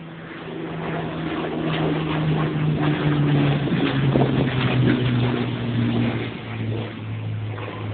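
Hawker Hurricane's Rolls-Royce Merlin V12 engine as the fighter flies past. The steady engine note swells to its loudest around the middle, then drops in pitch as the aircraft passes and moves away.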